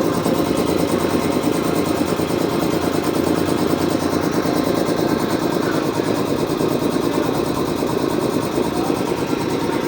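Puma 5 hp high-pressure air compressor running steadily on its test run.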